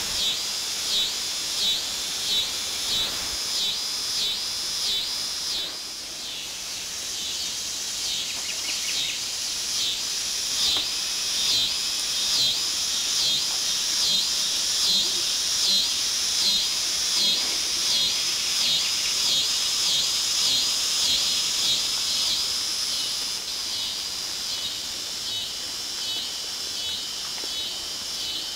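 A chorus of insects in the surrounding woods, shrilling high and pulsing at about two beats a second; the pulsing weakens near the end.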